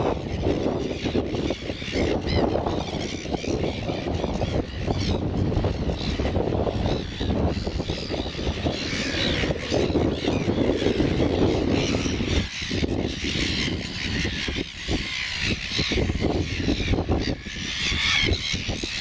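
Wind rumbling on the microphone, with a chorus of gulls calling; the calling grows thicker from about halfway through.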